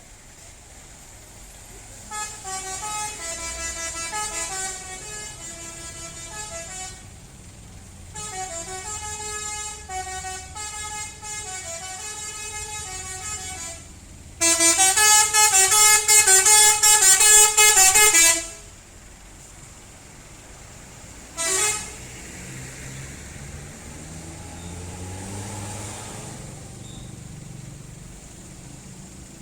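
Bus 'telolet' musical horn playing a tune of quick stepping notes in three long phrases, the third much louder, then one short blast. Near the end a low rising engine sound follows.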